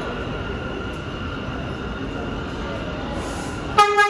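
New York City subway train rumbling into an underground station, with a thin steady squeal over the running noise. Near the end the train's horn sounds a short, loud blast.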